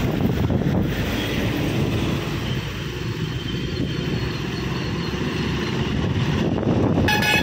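Road traffic passing close by, buses among it, with wind on the microphone. A short high-pitched tone sounds near the end.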